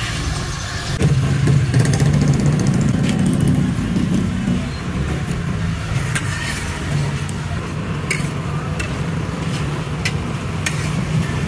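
Street food stall ambience: a steady low rumble with sharp clinks scattered through it, several seconds apart.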